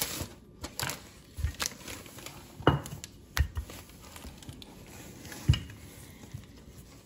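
Wooden rolling pin rolling out yeast dough on parchment paper: the parchment rustles and crinkles under the pin and hands, with several dull knocks, the loudest about three and five and a half seconds in.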